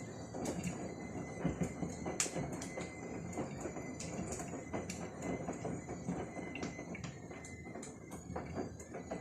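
Beko WUE8746N front-loading washing machine running a wash: the drum turns with a steady sloshing rumble and irregular sharp clicks and knocks. A faint steady high whistle from a kettle on the stove sounds behind it.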